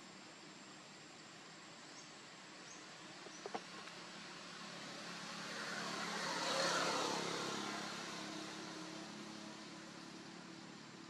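A vehicle passing by: a rush of engine and road noise that builds, peaks a little past halfway and fades away. Two short clicks come just before it builds.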